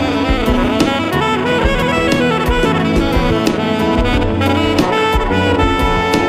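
Background jazz music: a saxophone playing a melody over a drum kit.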